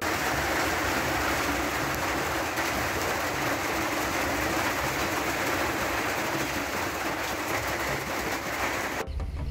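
Heavy rain falling steadily, a dense even rush of noise that cuts off abruptly about nine seconds in.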